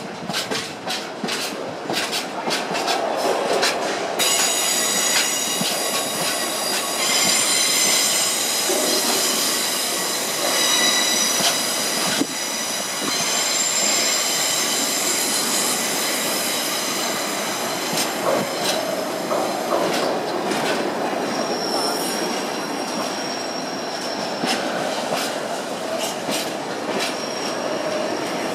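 A freight train of bogie oil tank wagons rolling past. For the first few seconds its wheels click regularly over the rail joints. Then a high-pitched squeal from the wheels sets in for much of the pass, fades, and comes back more faintly near the end.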